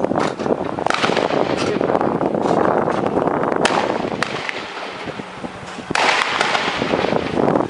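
Scattered sharp cracks of gunfire, several coming in quick succession, over a constant rushing background noise.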